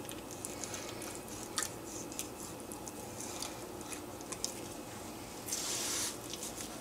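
Knife cutting through a raw peameal bacon roast on a wooden cutting board: faint wet squishing with scattered light clicks. A brief rustle comes near the end.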